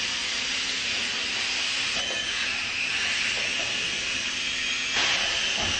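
Mini RC helicopter's small electric motor and rotor whirring steadily in flight, a high hiss-like whir with a faint low hum under it.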